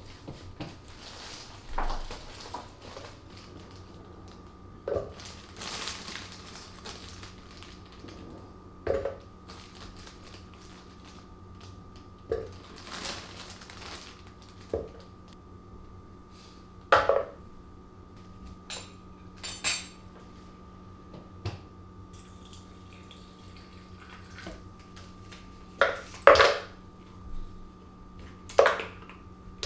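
Kitchenware being handled: scattered short clinks and clatters, a few louder knocks in the second half, over a steady faint hum.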